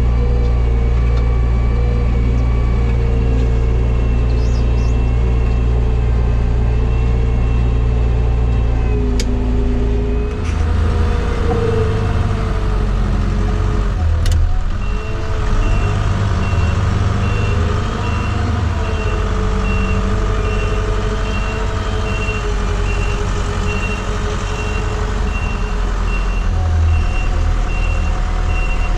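Telehandler's diesel engine running as the machine drives over a silage pit to compact the grass, its note changing about a third of the way in. From about halfway, a reversing alarm beeps about once a second as it backs up.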